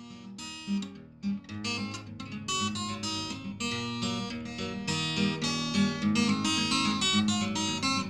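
Background music: acoustic guitar playing picked notes and strummed chords, growing louder over the first couple of seconds.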